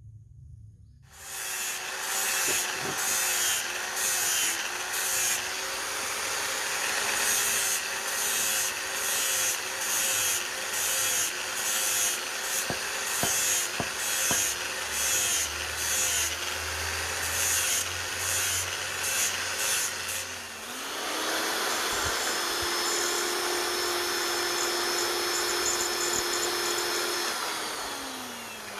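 Hand-held electric power tool grinding or sanding in repeated uneven passes against the work. About two-thirds of the way through it runs freely with a steady whine, then is switched off and winds down near the end.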